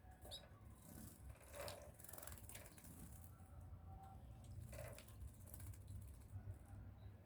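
Faint scattered clicks and light patter from small pet birds moving and splashing in a shallow water bath, over a low steady hum.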